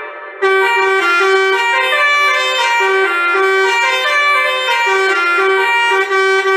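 Basuri 'telolet' multi-tone bus air horn playing a tune: a string of stepped horn notes over a held low tone, starting about half a second in.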